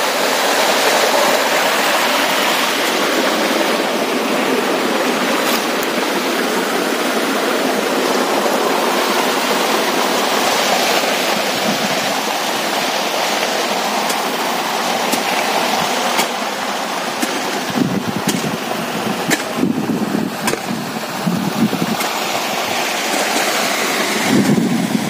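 Steady rush of pumped irrigation water pouring and flowing, with uneven low rumbles in the last several seconds.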